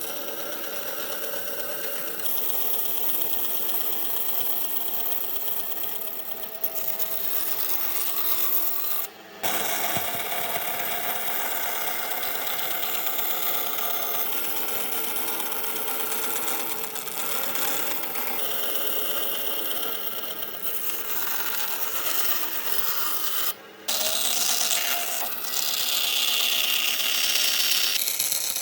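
A power tool running against wood, a steady rasping noise that breaks off briefly twice.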